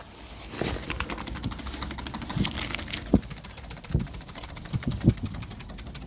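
A small fire of cardboard and wood scraps crackling with dense, irregular ticks, with a few louder knocks from handling in the middle and towards the end.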